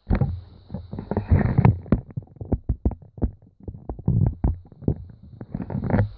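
Handling noise on the recording phone or camera as it is moved and repositioned: a dense, irregular run of bumps, knocks and rubbing rumbles, loud against the quiet room.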